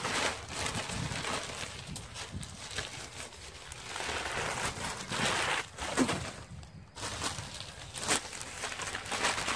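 A bag of potting soil rustling and crinkling as soil is tipped out of it into a pot, in uneven spells of rustle and soil sliding.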